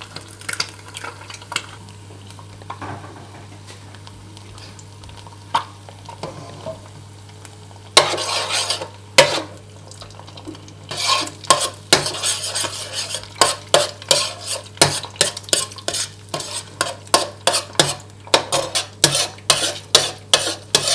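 Eggs frying in hot oil in a nonstick wok with a light sizzle, then a metal spatula scraping and knocking against the wok as the eggs are scrambled. A couple of strokes come about eight seconds in, and from about halfway the strokes come quickly, a few a second.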